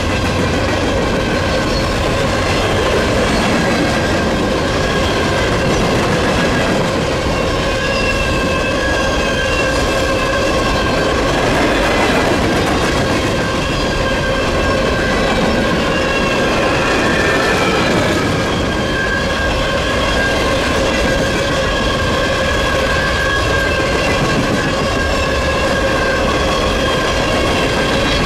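Empty hopper cars of a freight train rolling past close by: loud, steady rumble and rattle of wheels on rail, with a continuous high-pitched wheel squeal in several tones over it.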